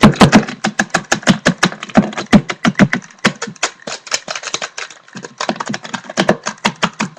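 A padlock and a pair of sunglasses clacked and knocked against each other in a mock fight: a fast, uneven run of sharp clicks and clatters, about six a second, with brief pauses twice.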